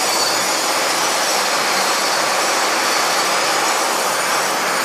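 A running machine on the job site: steady, loud mechanical rushing noise with no clear rhythm or pitch.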